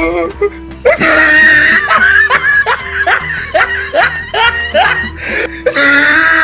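High-pitched laughter sound effect: a run of short falling hoots about three a second, over background music.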